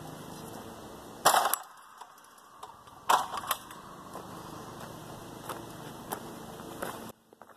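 Aluminium step ladder clanking as it is set down and opened into an A-frame: a few sharp metallic knocks and clicks, the loudest about a second in and again around three seconds in, over a steady background hum.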